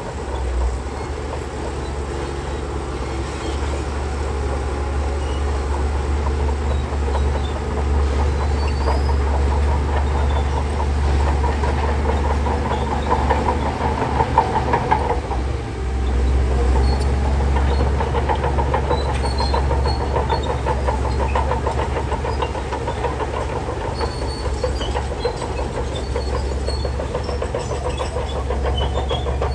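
Shantui DH17C3 crawler bulldozer's diesel engine running under load, with the steady rhythmic clatter of its steel tracks as it moves. The sound dips briefly about two-thirds of the way through, then picks up again.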